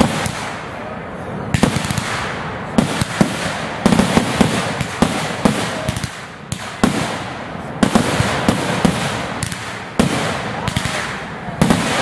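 Aerial fireworks shells bursting one after another: many sharp bangs in quick, irregular succession over continuous crackling.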